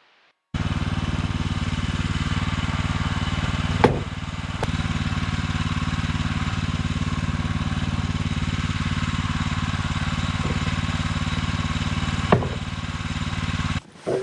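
Small gasoline engine of a portable bandsaw sawmill running steadily, with two sharp clicks, one about four seconds in and one near the end. It starts and cuts off abruptly.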